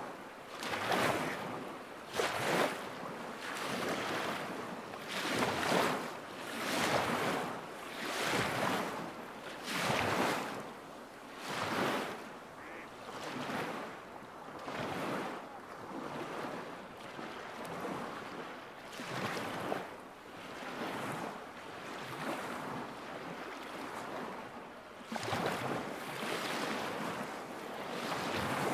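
Small lake waves lapping against the shore in a steady rhythm, one wash about every one and a half seconds.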